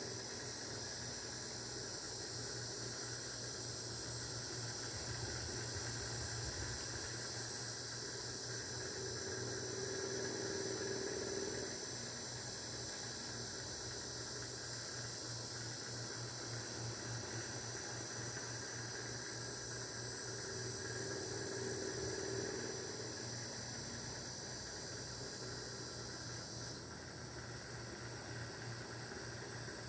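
Steady high-pitched chorus of insects, such as crickets or cicadas, that eases slightly near the end.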